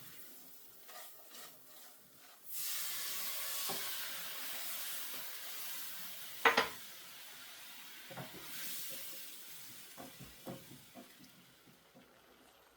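Food frying in a hot pan: a sizzle starts suddenly about two and a half seconds in and slowly dies down, with a sharp metal clank of a utensil on the pan in the middle and a few lighter knocks near the end.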